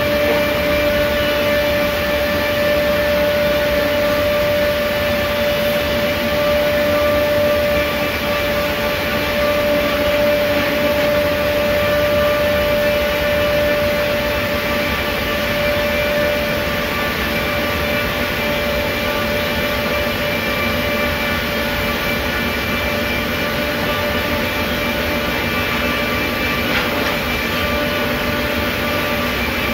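11 kW timber-package trimming station's travelling saw unit running with a steady whine over rough noise as it cuts down through a stationary stack of boards. It gets slightly quieter about halfway through.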